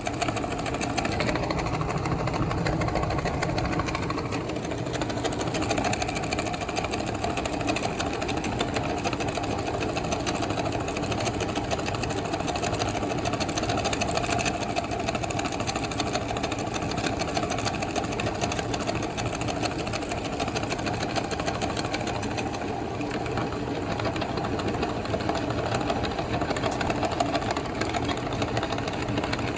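Meat grinder running steadily, a continuous mechanical whirr.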